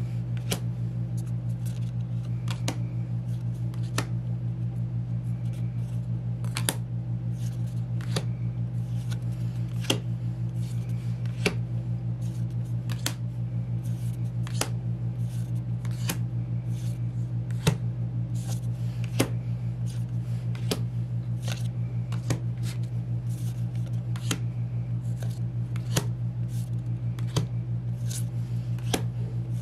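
Glossy photocards being flipped one by one through a hand-held stack, each card giving a short snap or click about once a second, irregularly spaced. A steady low hum runs underneath.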